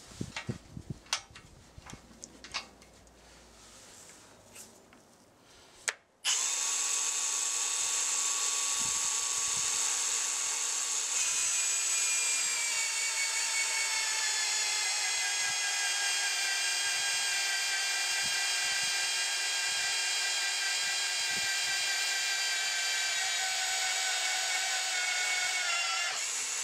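Milwaukee M18 Fuel magnetic drill with a 1-1/16-inch annular cutter cutting steel plate. A few faint clicks come first; about six seconds in the motor starts suddenly and runs with a steady whine while the cutter bores into the steel. Its pitch sinks slowly as the cut goes on, and it stops near the end.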